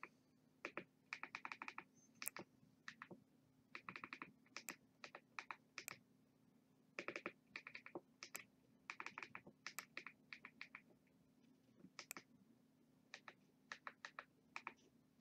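Quick runs of light clicks with short pauses between them as the Fire TV Stick's on-screen number pad is navigated, key by key, to enter a DNS address. A faint steady hum lies beneath.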